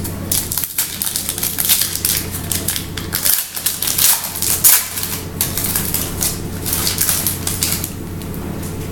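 Foil wrapper of an Optic baseball card pack crinkling and crackling as it is torn open by hand, an irregular run of sharp crackles that thins out near the end.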